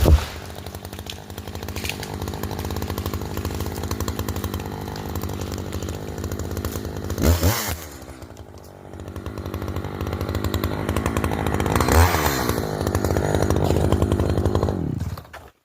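Echo chainsaw running hard while cutting hemlock. About halfway through it revs briefly and drops toward idle, then builds back up to full throttle and revs again. The sound cuts off abruptly just before the end.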